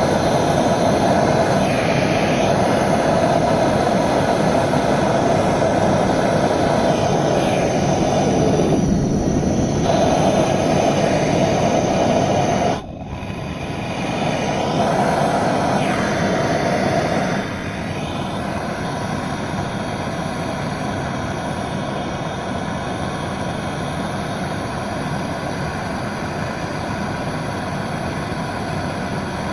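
Handheld gas torch (gas burner) flame burning steadily while heating a copper pipe joint for soldering. The sound dips sharply about 13 seconds in, comes back, then drops to a lower steady level from about 17 seconds on.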